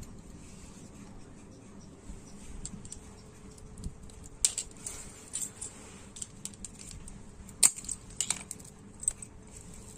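A small screwdriver prying and scraping at the metal grid parts and ceramic support rods of a CRT electron gun, giving scattered sharp metallic clicks and ticks; the loudest click comes about three-quarters of the way through.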